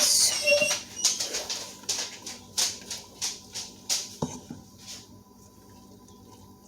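A spoon folding noodles and meat mixture in a pan: about two short scraping, squelching strokes a second, stopping about five seconds in.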